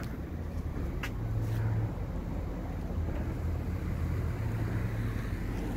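Low, steady rumble of road traffic with wind on the microphone, and a single short click about a second in.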